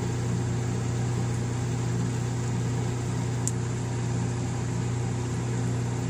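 Imbera VRS16 commercial cooler's refrigeration unit running with a steady low hum.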